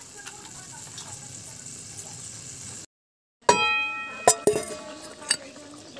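A pot of curry simmering with a steady bubbling hiss. After a short cut to silence a little before halfway, a metal ladle strikes the metal pot several times, each clink ringing on.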